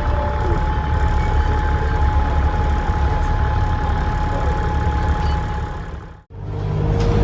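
Dennis Trident double-decker bus's diesel engine running, heard from inside, with a steady high whistle typical of its turbocharger. The sound cuts out abruptly about six seconds in and picks up again a moment later.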